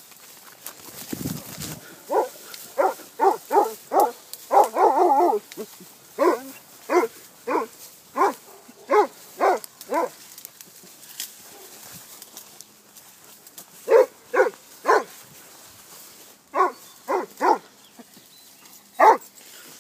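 Hunting hounds giving tongue in the scrub: short, repeated yelping bays in several bursts of two to six calls at about two or three a second, with two voices overlapping once early on.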